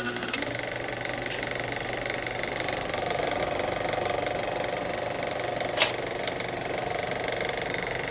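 Steady mechanical hum and whir of room noise, with a single sharp click a little before six seconds in.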